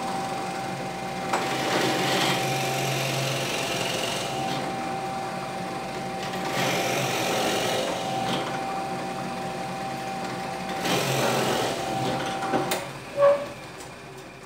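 Benchtop drill press motor running with a steady hum and whine while the bit bores into a small block of wood, the cutting noise swelling a few times as the bit is fed down. The motor is switched off near the end and runs down.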